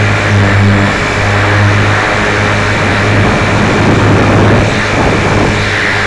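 Motor of a moving vehicle running steadily, a constant low hum under dense road and wind noise.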